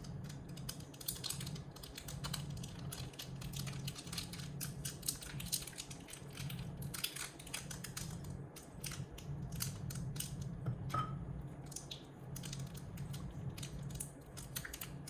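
Irregular light clicks, taps and rustles of hands working paratha pastry into small metal egg-tart tins, over a steady low hum.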